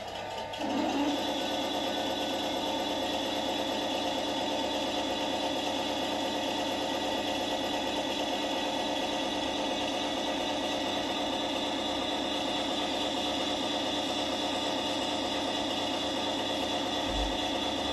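RC tank turret traverse motor and gearbox whirring steadily as the Bergetiger's turret-mounted crane swings around. It starts about a second in, over the quieter steady hum of the model's engine-idle sound.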